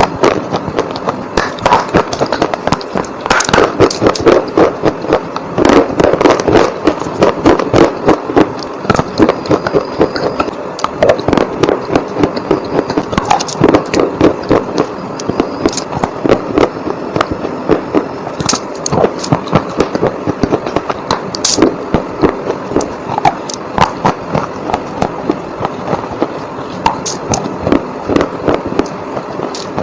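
Close-miked ASMR biting and chewing of hard, crunchy colored bars: a dense, continuous run of sharp cracking crunches.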